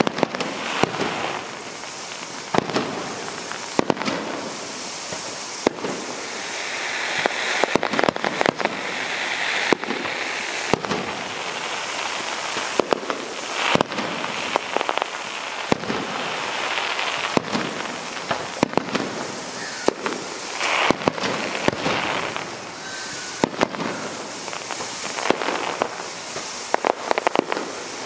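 Fireworks display: an irregular run of sharp bangs from bursting shells, some in quick clusters, with longer noisy stretches between them.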